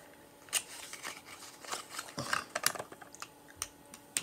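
Light, irregular clicks, taps and brief rustles of hands handling small cosmetics packaging, getting a lip gloss tube out.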